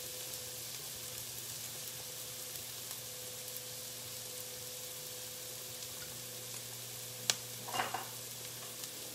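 Onions and garlic sizzling steadily in butter in an enamelled pan, over a faint steady hum. A sharp click comes about seven seconds in, with a brief clatter just after.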